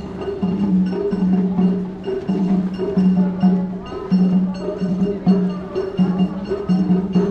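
Japanese festival hayashi music: drums played in quick rolls and strikes, with a small metal gong ringing in a steady rhythm.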